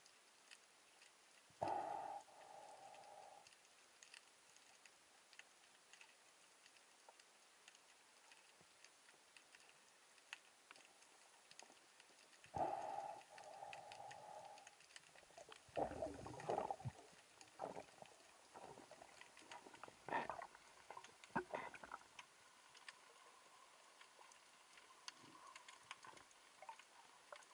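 Underwater sound picked up by a camera in its housing: a fine, steady crackle of faint ticks, broken by a few louder knocks and short rushes about two seconds in, around twelve to seventeen seconds and around twenty to twenty-two seconds.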